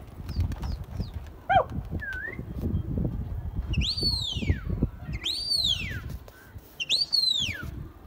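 A flock of domestic pigeons taking off and circling, with wing flapping over a low rumble. From about 4 seconds in, three loud sweeping whistles come about a second and a half apart, each rising and then falling in pitch.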